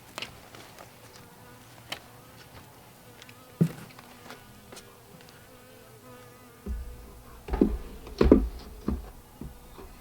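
Honeybees buzzing in a steady hum around an open, overcrowded hive, broken by a sharp knock a little over a third of the way through and a cluster of louder knocks and bumps in the second half.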